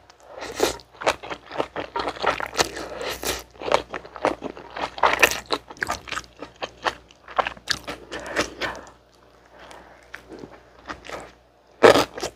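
Close-miked eating: chewy jjolmyeon noodles taken up and chewed, then a slice of gimbap bitten and chewed, in a dense run of wet mouth clicks. It goes quieter late on, then ends with a loud burst of chewing.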